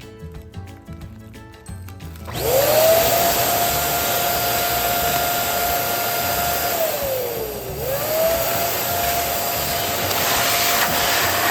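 Background music, then about two seconds in an electric balloon pump switches on and runs with a steady whine and a rush of air. Its pitch sags for about a second near the middle and comes straight back up.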